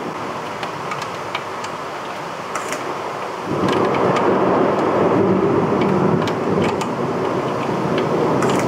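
Heavy thunderstorm rain pouring, with scattered sharp ticks of drops. About three and a half seconds in, a long thunder rumble sets in and keeps going, louder than the rain.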